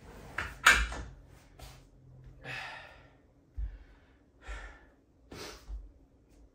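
Adjustable weight bench's backrest being raised, with a few clacks as it locks upright, the loudest a little under a second in. Then heavy out-of-breath sighs after exercise and a few dull barefoot footsteps on a wooden floor.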